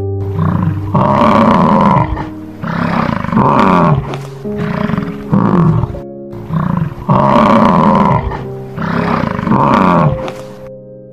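American bison bellowing repeatedly, about seven calls a second or so apart, each falling in pitch, over steady background music.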